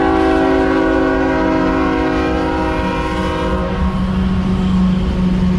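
A freight locomotive's air horn sounds one long chord of several notes, which cuts off about four seconds in. Under it, the train's low steady rumble and hum go on.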